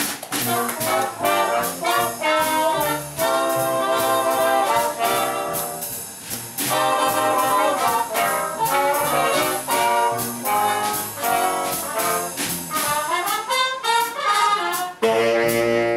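Small big band playing a swing jazz arrangement live: saxophones and trombone in ensemble over upright bass, with a long held chord near the end.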